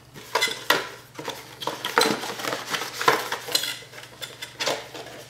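Hard objects clinking and clattering as they are handled, in a quick irregular string of sharp knocks, like dishes and cutlery.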